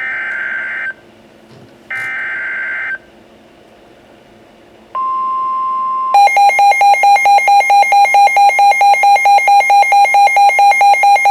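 EAS alert on a NOAA Weather Radio receiver: two one-second bursts of buzzy SAME header data tones, then about five seconds in the steady 1050 Hz weather alert tone begins. About a second later the receiver's own pulsing electronic alarm takes over, about four beeps a second, signalling a Severe Thunderstorm Warning.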